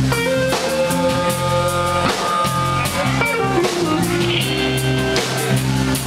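Live blues band playing an instrumental passage: electric guitars, electric bass, drum kit and amplified blues harmonica, with long bending lead notes over a steady beat.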